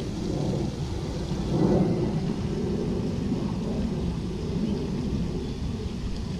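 Wind rumbling and buffeting on the action camera's microphone, a continuous low noise that swells briefly about two seconds in.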